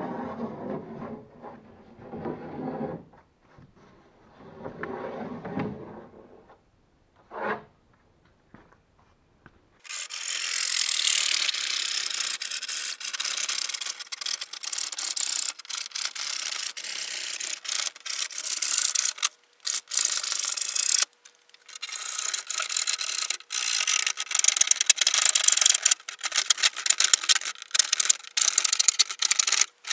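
Plywood being abraded by hand, a loud rasping scrape in rapid uneven strokes that starts about a third of the way in, after softer rubbing and scratching on the wood.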